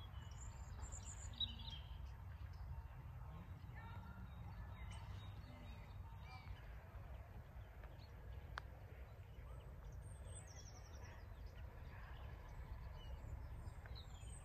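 Small birds chirping now and then over a faint, steady low rumble, with a short burst of high chirps about a second in and a quick run of high notes about ten seconds in.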